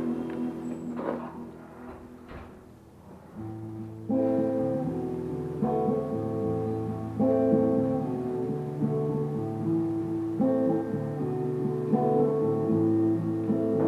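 Electric guitar playing an instrumental passage: quiet and sparse for the first few seconds, then from about four seconds in fuller chords ring out, held and changing every second or two.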